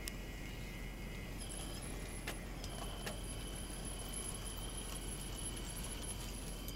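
Electric drive motors and gearboxes of a radio-controlled 1/12-scale CAT 973B track loader model whining as it drives over dirt. The high whine sets in about a second and a half in and holds steady, with a couple of sharp clicks soon after.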